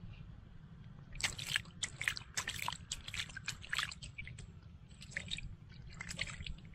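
Water splashing and squelching in quick irregular bursts, starting about a second in and again around five seconds in.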